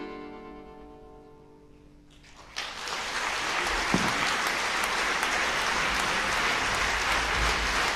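An orchestra's closing chord rings out and fades away, then about two and a half seconds in a concert-hall audience breaks into steady applause, which becomes the loudest sound.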